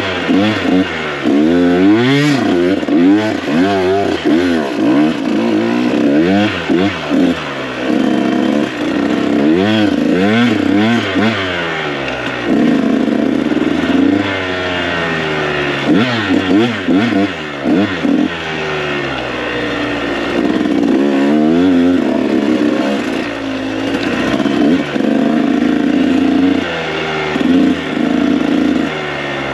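KTM 125 SX two-stroke single-cylinder dirt bike engine revving hard and easing off over and over. The pitch rises and drops in quick sweeps, with a few short stretches held steadier.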